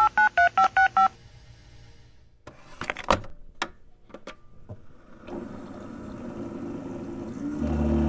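Touch-tone dialing beeps for about the first second, then a Keurig single-serve coffee maker: a handful of sharp plastic clicks as the machine is handled, then a steady whirring hum from about five seconds in as it starts to brew, with a louder low pump buzz coming in near the end.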